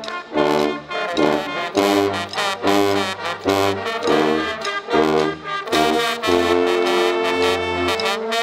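Guggenmusik brass band of sousaphones and trumpets playing: short, punchy repeated chords, then longer held chords from about six seconds in.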